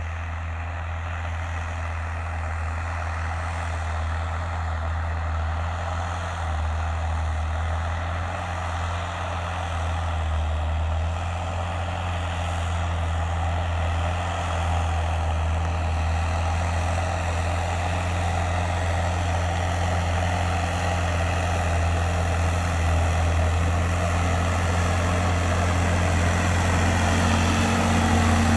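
Fendt 936 Vario tractor's six-cylinder diesel engine running steadily under load as it pulls a four-furrow plough through the soil. It grows steadily louder as the tractor draws near.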